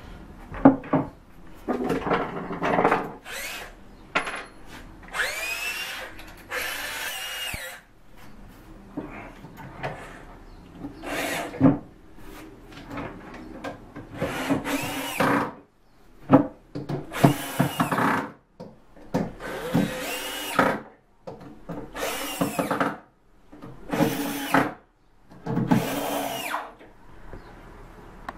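Cordless drill running in short bursts of about a second each, its motor whine rising as it spins up, while fastening a walnut leg frame to a cabinet. There are about a dozen bursts with brief pauses between them, and a few knocks from handling the wood in the first seconds.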